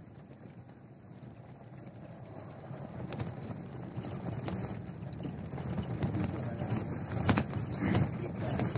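Wind buffeting a phone's microphone: an uneven low rumble that grows louder from about three seconds in, with scattered sharp clicks.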